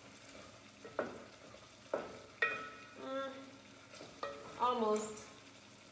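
Spoon stirring and scraping rice in a skillet on the stove, with several sharp knocks of the spoon against the pan over a faint frying sizzle. The coconut cauliflower rice is cooking down to dry and is almost done.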